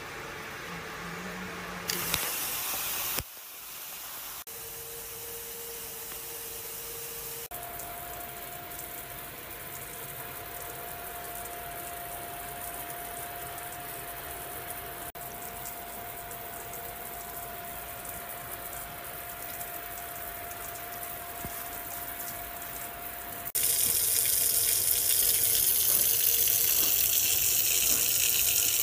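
Water spraying from a shower panel's jets, a steady hiss that changes abruptly a few times, with a faint steady whine under it through the middle. About 23 seconds in, a much louder rush sets in as the panel's waterfall spout pours a thick stream.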